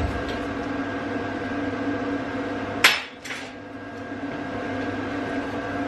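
Two sharp metal knocks about three seconds in, the first loud and the second weaker: steel bracket pieces being struck or knocked against a steel workbench. A steady hum runs underneath.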